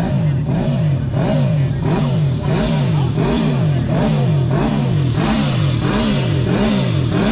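Motorcycle engine revved over and over in a steady rhythm, its pitch rising and falling about three times every two seconds.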